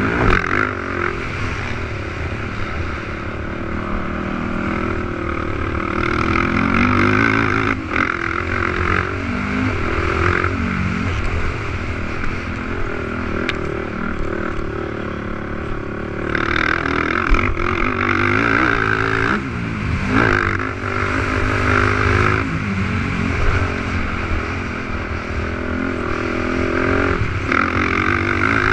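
450cc racing quad engines revving hard, their pitch repeatedly rising and falling as the ATVs accelerate, shift and back off around a motocross track.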